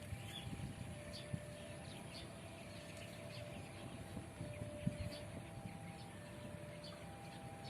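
Faint outdoor ambience: a steady low rumble with scattered small high chirps and soft, steady tones that shift between two pitches. Two light knocks, about a second and a half in and again near the middle.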